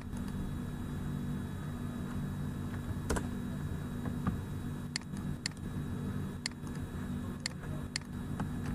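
About half a dozen sharp, irregularly spaced clicks of a computer mouse, over a steady low hum.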